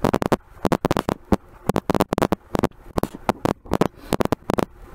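Stylus tapping and scratching on a tablet screen while handwriting: a quick, irregular run of sharp clicks, several a second.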